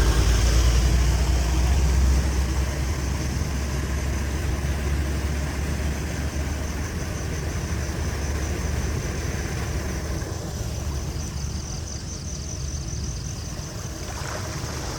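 Floodwater rushing and draining, a steady low rumble of moving water that eases off slightly toward the end.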